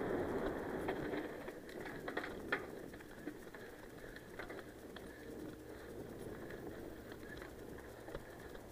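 Mountain bike riding fast down a dirt and gravel singletrack: a rushing noise of tyres and air that eases after the first two seconds, with scattered clicks and rattles from gravel and the bike, the sharpest a little after two and a half seconds in.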